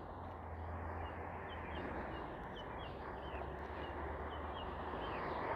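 Steady outdoor background noise with a low rumble, growing a little louder near the end, under faint high bird chirps repeating about twice a second.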